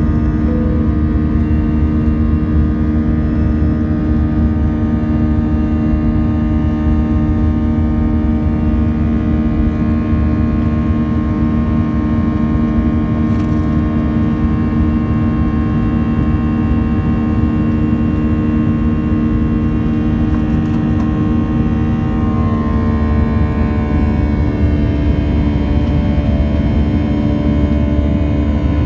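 Airbus A320 airliner's wing-mounted jet engine running at climb thrust just after takeoff, heard inside the cabin as a loud, steady rush with a droning hum of several steady tones. About 23 seconds in, some of the higher engine tones slide a little lower.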